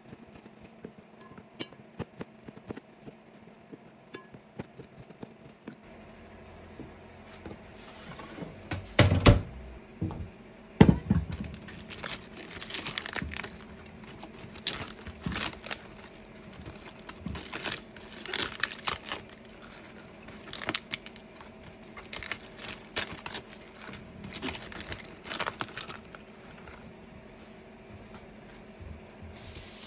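Irregular crinkling and tearing rustles, starting about a quarter of the way in, with two louder knocks around the one-third mark, over a steady low hum.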